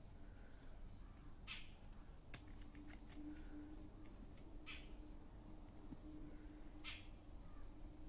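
Puppies giving faint, short high-pitched yelps or whines, three of them a few seconds apart, while being hand-fed, over a low steady hum.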